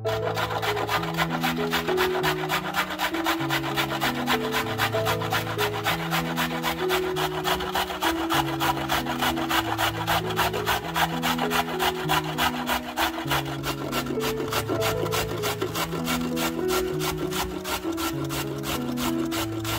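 A carrot being grated on a stainless-steel box grater: a steady run of quick, even scraping strokes. Background music plays underneath.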